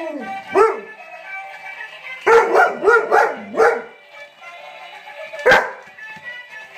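An Alaskan Malamute vocalizing at an animated toy chicken: short pitch-bending woo calls under a second in, a run of about four more from two seconds in, and one sharp bark about five and a half seconds in. The toy's tune plays steadily underneath.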